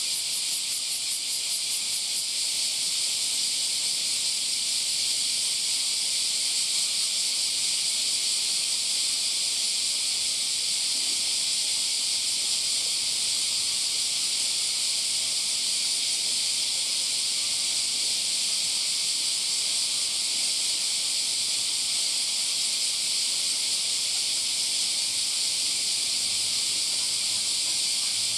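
Chorus of summer cicadas: a steady, high, shrill hiss with no break.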